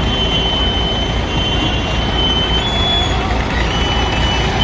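Escorts Hydra crane's diesel engine running hard with a steady low throb, and a thin high whine that shifts slightly in pitch.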